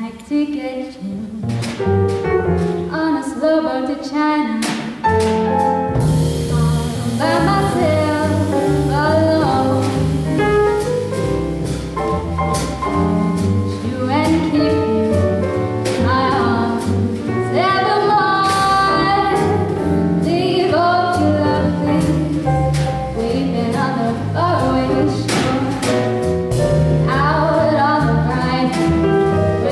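A female jazz vocalist singing into a microphone, backed by a small jazz combo of grand piano, drum kit and double bass; the accompaniment grows fuller about six seconds in.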